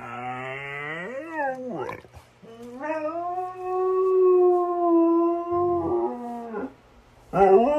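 Siberian husky howling, the 'talking' huskies do: first a short howl that rises and falls in pitch, then a long, steady held howl lasting about four seconds.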